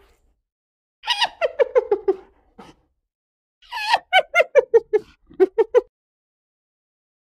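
Spotted hyena giggling, its 'laugh' call: two fast runs of short pitched notes, about eight a second, each run stepping down in pitch. The first run comes about a second in, the second about four seconds in.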